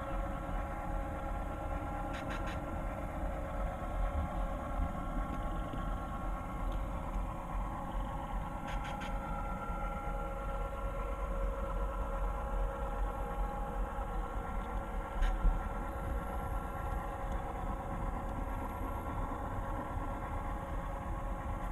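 EMD F7 diesel engine sound from an HO-scale model locomotive's Soundtraxx DCC sound decoder, running steadily with a low rumble. A few short clicks cut through, the loudest about fifteen seconds in.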